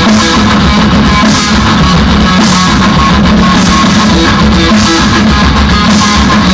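Rock band playing live: loud electric guitars and drums, recorded at a heavily overloaded level that sounds distorted.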